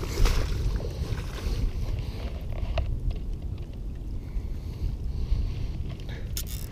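Wind buffeting the microphone, a steady low rumble with a few faint clicks over it.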